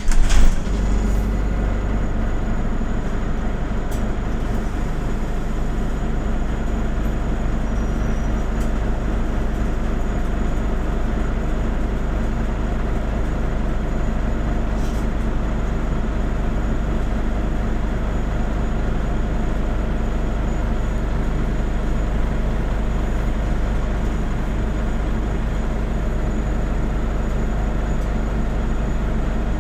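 Autosan Sancity M09LE midibus heard from inside while under way: a steady deep engine and road rumble with a constant hum, and a few faint clicks or rattles.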